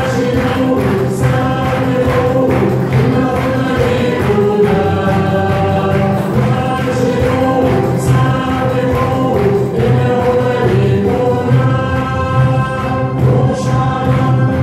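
Choral music: a choir singing held notes in several voices, the notes changing about once a second.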